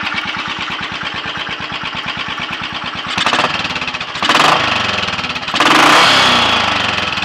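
Royal Enfield Bullet 500 single-cylinder four-stroke engine running with an even beat on its first warm-up after a top-end rebuild with ported head, high-compression piston and shortened barrel. About three seconds in the throttle is blipped twice, then a longer rev rises and falls back toward idle.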